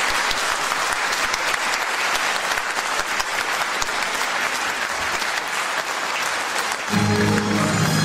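Audience applauding. About seven seconds in, the song's instrumental introduction starts with sustained low notes under the fading clapping.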